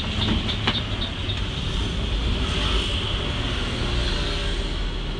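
Cabin noise inside a Mercedes-Benz OH 1526 diesel coach on the move: a steady low engine and road rumble. A quick, faint ticking, about three a second, fades out in the first second or so.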